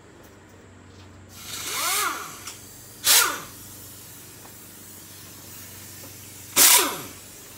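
Compressed air being turned on to a pneumatic impact gun: a steady air hiss starts a little over a second in. Over it come three short whirs of the air gun's motor spinning up and down, near two, three and six and a half seconds in, the last two the loudest.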